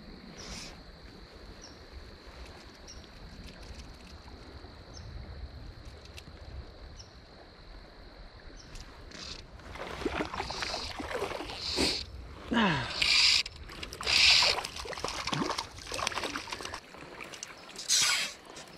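A hooked trout splashing and thrashing at the water's surface in a string of loud splashes over the second half, while it is played and drawn toward the net. Before that there is only the low murmur of a shallow creek.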